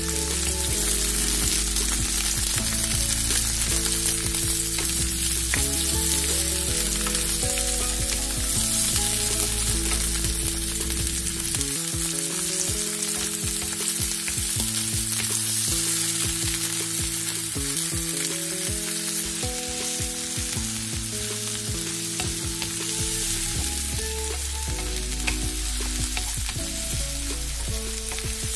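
Chopped onion, garlic, carrot and green peas sizzling in oil in a frying pan, turned now and then with a wooden spatula. Soft low background music runs underneath.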